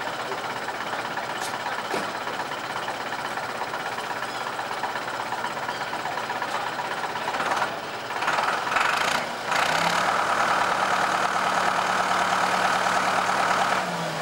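An engine running: a steady rumble at first, picking up unevenly about eight seconds in, then from about ten seconds on holding a steady, higher, rattling note, which dips and drops off just before the end.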